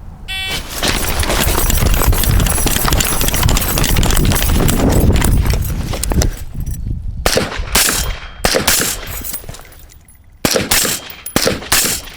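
A shot timer beeps. About six seconds of continuous running noise follow, then suppressed 5.56 AR-15 carbine shots in two groups, several sharp cracks each.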